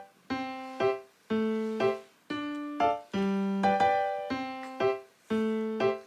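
Background music: a piano-like keyboard playing a slow, simple melody in short phrases of single notes, with brief gaps between them.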